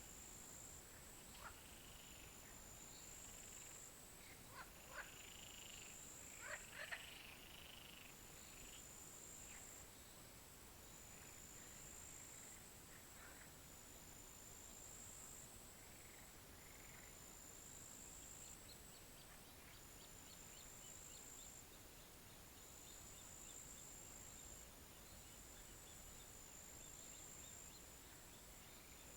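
Faint pond frogs calling, a handful of short arching croaks in the first third, over a continuous high-pitched trill.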